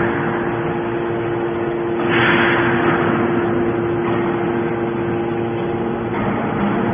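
Hydraulic scrap metal baler running, its power unit giving a steady hum. A surge of hiss swells about two seconds in and fades over the next second or so.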